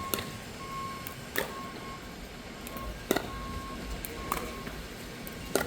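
Pickleball rally: paddles striking the plastic ball, five sharp pops about a second and a half apart. A faint high tone keeps coming and going behind them.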